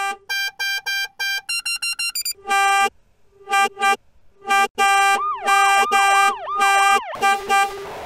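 A car horn edited into a string of meme variations. A fast run of short beeps picks out a tune, then comes a short gap, a few honks, and longer blasts with a swooping tone sliding up and down over them. Quick honks follow near the end.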